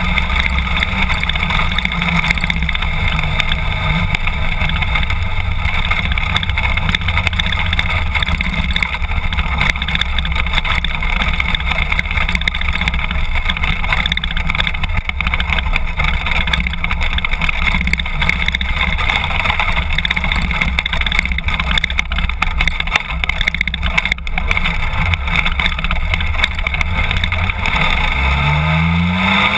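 BMW F800GS parallel-twin engine running steadily at low speed over gravel, heard from a camera mounted low on the bike, then rising in pitch as it accelerates near the end.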